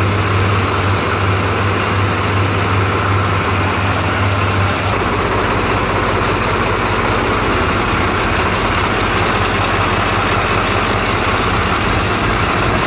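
Swaraj 735 XT tractor's three-cylinder diesel engine running steadily, its low hum shifting deeper about five seconds in.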